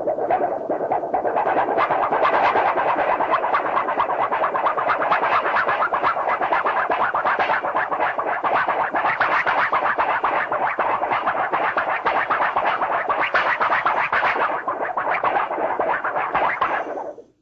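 Cartoon warble sound effect: a long, rapid fluttering rattle that cuts off suddenly near the end.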